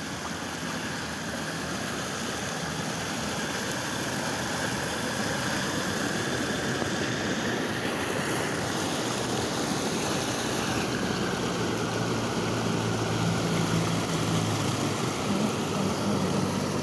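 Rainwater runoff rushing down a grassy ditch and pouring into a culvert pipe, a steady rushing and gushing of water that grows slightly louder partway through.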